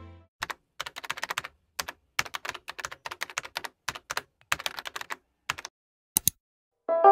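Computer keyboard typing sound effect: quick, uneven runs of key clicks with short pauses, ending with two clicks about six seconds in.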